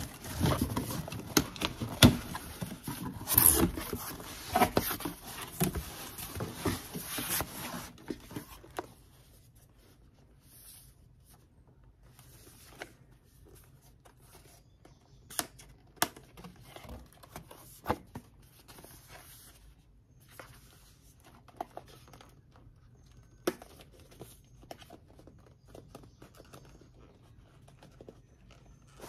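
Packing tape being peeled and torn off a cardboard box, with the box flaps rustling, for about the first eight seconds. After that, scattered light knocks and rustles as cardboard product boxes are lifted out and handled.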